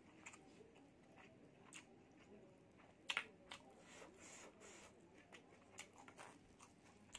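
Quiet close-up eating sounds: a person chewing a mouthful of noodles and rice, with small scattered mouth clicks and a sharper double click about three seconds in.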